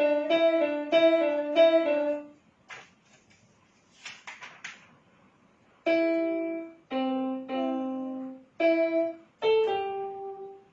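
Piano being practised: a quick run of repeated chords for about two seconds, then a pause with some faint rustling, then single chords and notes struck and left to ring out one after another.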